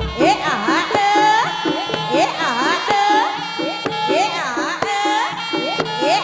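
Live East Javanese jaranan music: kendang drums beating a steady pattern under a high melody full of quick rising and falling slides.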